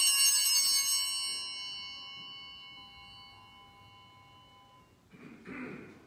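Sanctus bells rung at the elevation of the host. The busy, shaken ring of the first second dies away slowly over about four more seconds. A short muffled rustle comes near the end.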